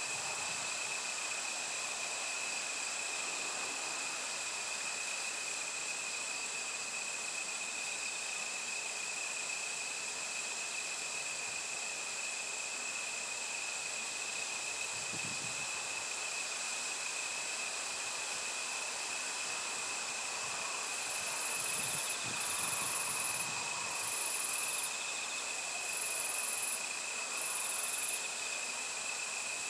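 Steady high-pitched chorus of singing insects, such as crickets, with two continuous tones. About two-thirds of the way through, a second insect adds five higher-pitched bursts of about a second each.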